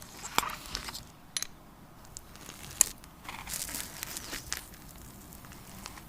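Handling sounds: a few sharp clicks and taps, with the loudest nearly three seconds in, among faint rustling and crinkling.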